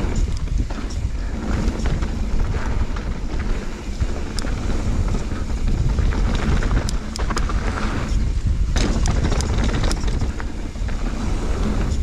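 Wind buffeting the microphone and knobby tyres rumbling over a dirt trail as a Fezzari La Sal Peak mountain bike descends at speed, with sharp clicks and rattles from the bike and trail surface, thickest from about four seconds in.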